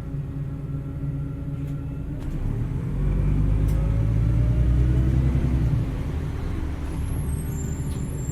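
Heuliez GX317 LPG city bus engine running, heard on board; its low hum swells louder about three seconds in and eases back near six seconds. Faint high squeals come in near the end.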